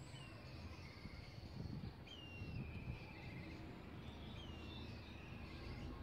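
Black kites calling: three thin whistled calls, each gliding down in pitch and breaking into a quavering trill, over a steady low background hum.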